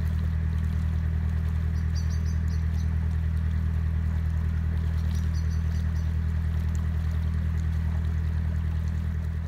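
Narrowboat diesel engine running steadily under way, a low even hum with a fast regular throb.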